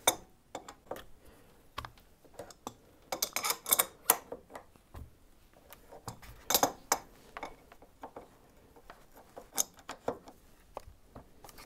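Metal hand tools clicking and clinking on a motorcycle's upper fork clamp and fork cap while the clamp bolt and cap are broken loose: scattered sharp clicks and knocks, some in quick clusters.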